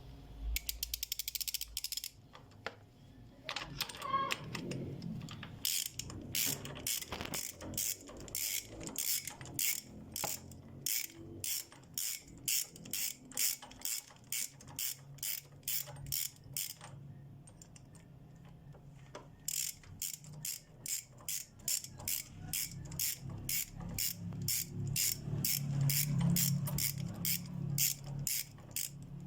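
Ratchet wrench clicking in steady strokes, about two clicks a second, as the bolts holding a motorcycle's front drive sprocket are backed out. A quick run of rapid clicks comes near the start, and a pause of a couple of seconds about two-thirds of the way through.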